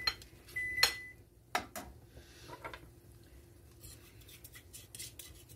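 Metal spoons clinking and scraping as a tablespoon of bouillon paste is scraped off a measuring spoon into a simmering roux in a metal skillet. There are a few sharp clinks in the first two seconds, one of them ringing briefly, then fainter taps and scrapes.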